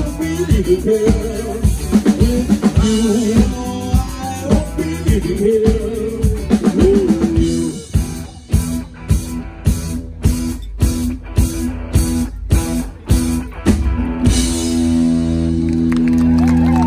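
Live rock band with drum kit and guitar, a bending lead melody over the full band at first. About eight seconds in, the band switches to short stop-start hits, about two a second with silent gaps between. A final held chord rings out near the end, the close of a song.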